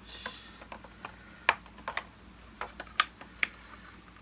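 Irregular sharp clicks and light taps of the plastic parts of a Hoover Purepower U3450 vacuum cleaner being handled during disassembly, about a dozen in all, the loudest about a second and a half in and at three seconds.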